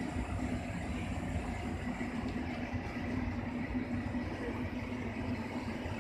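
Steady low rumble of a ro-ro passenger ferry's running machinery, with a constant hum over it.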